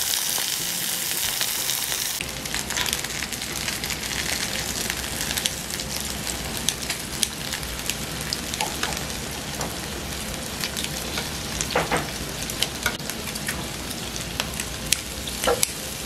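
Meat, eel and seasoned pollack sizzling steadily on a hot griddle. Scattered clicks and a few short scrapes come from metal tongs and kitchen scissors working the food on the pan.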